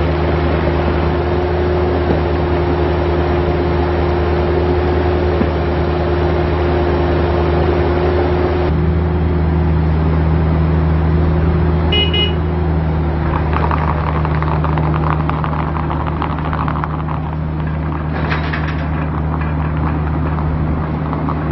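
Bobcat E26 mini excavator's diesel engine running steadily. A brief high beep comes just past halfway, followed by rattling and clatter as the machine travels on its rubber tracks.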